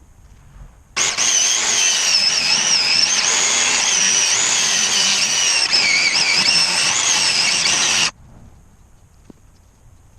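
A power tool running for about seven seconds, starting and stopping abruptly, with a high whine that wavers in pitch.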